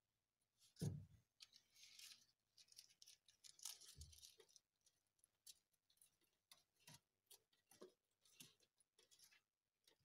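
Faint, irregular crisp clicks and rustles of fresh leafy greens being handled and bitten by a giant Canary lizard, with a soft thump about a second in and another near four seconds.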